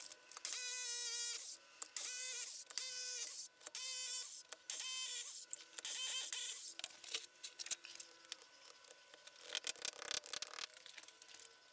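Hammer drill running in about six short bursts, spinning up and down as holes are bored into the wall. In the last few seconds comes a quick run of taps and knocks from a soft-face mallet driving 6 mm wall plugs into the holes.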